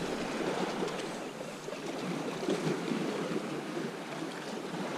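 Shallow sea water washing and sloshing at the shoreline, a steady, unbroken wash.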